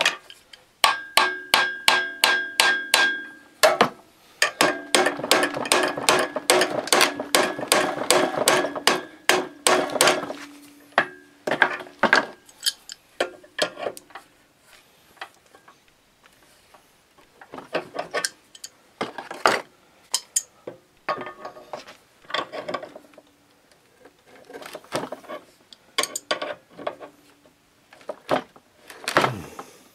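Hammer blows on a steel three-jaw gear puller clamped on the pulley of a rusty Tecumseh HS40 engine crankshaft, meant to shock the stuck pulley loose. Two long runs of quick strikes, about four a second, each with a metallic ring, are followed by scattered knocks and tool clatter.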